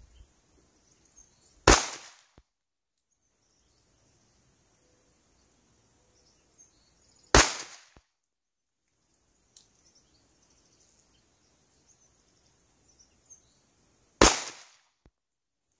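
Three single pistol shots from a Rock Island 1911 in 9mm, fired slowly about six to seven seconds apart, each a sharp crack with a short echoing tail.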